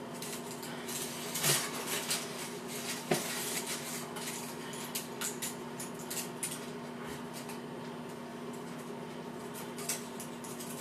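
Scattered light clicks and clinks of a shower curtain's rings and a metal shower rod being handled, the rings knocking and sliding along the rod.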